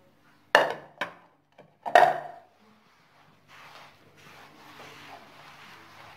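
Three sharp knocks of a ceramic bowl against a glazed clay dish and the counter as wheat bran is tipped out of it and the bowl is set down. After that comes a soft rustling in waves: hands rubbing the dry bran and flour mixture in the clay dish.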